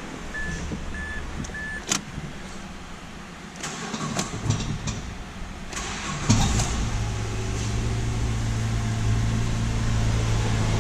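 A car's warning chime beeps a few times, then the Mazda3 SP23's 2.3-litre four-cylinder engine is cranked and fires about six seconds in, settling into a steady idle. This is its first start after the conrod bearings were replaced to cure a rod knock.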